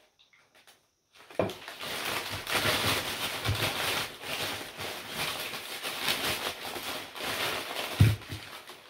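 Wrapping paper rustling and crinkling as a parcel is unwrapped by hand, with a low thump about a second and a half in and another near the end. The first second is near silent.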